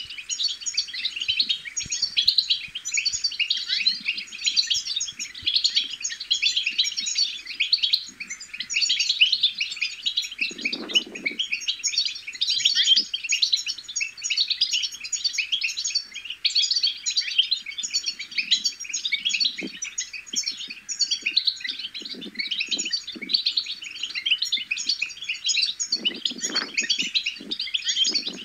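European goldfinches twittering in a dense, unbroken chatter of quick high chirps and trills. A few brief low sounds come in underneath, once midway and a few times near the end.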